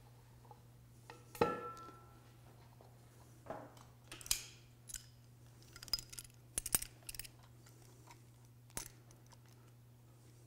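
Metal clatter from working a ball-and-trunnion driveshaft joint by hand: a loud ringing metal clank about a second and a half in, then a run of sharp clicks and taps of steel hand tools against the joint, with one last click near the end.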